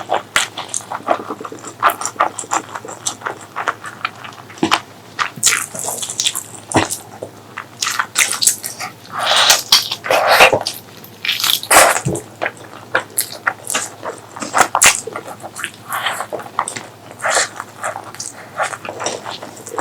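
Close-miked chewing and lip-smacking of a person eating pork leg curry with rice: a dense run of wet clicks and smacks, with a few longer, noisier mouth sounds about halfway through.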